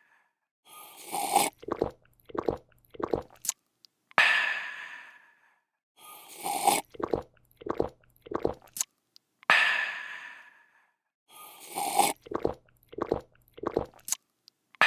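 Sound effect of a person slurping a drink, gulping it down in a few quick swallows, then letting out a refreshed "aah". The sequence repeats about every five seconds, almost three times here.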